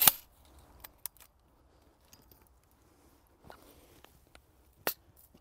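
Telescopic landing net being opened out and set up: a sharp click at the start, a few faint ticks soon after, and another sharp click near the end, with near quiet between as the handle sections slide out and lock.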